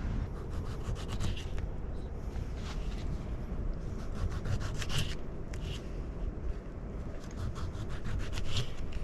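Quick repeated scraping strokes in several short runs, over a steady low rumble.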